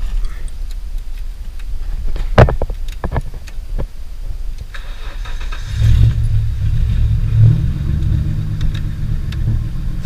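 Nissan R31 Skyline's RB30 straight-six, with a straight-pipe exhaust, cranked over and catching about six seconds in, then running at a steady idle. A few clicks come before it.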